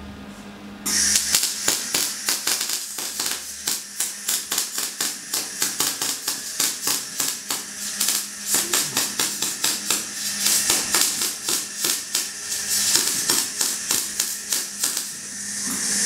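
Electric arc welding on a steel frame: a dense, irregular crackle and hiss from the arc, starting about a second in and easing briefly near the end, over a steady low hum.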